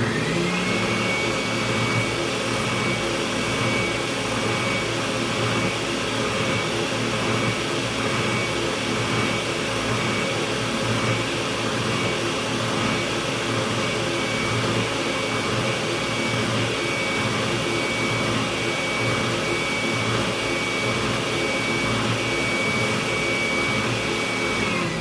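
Power sander switching on and spinning up, running steadily with a high whine, then switched off and winding down at the end, used to grind a wooden dowel rod down to fit a bridge mounting hole.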